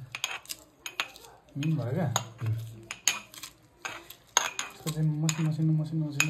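Metal pestle pounding in a small metal mortar: a quick run of sharp metallic clinks and knocks as garlic and ginger are crushed into a spice paste.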